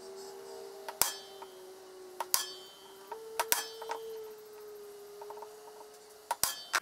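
Automatic (spring-loaded) centre punch firing into an aluminium bar: five sharp snaps, each with a brief metallic ring, as hole positions are marked. A faint steady hum runs underneath.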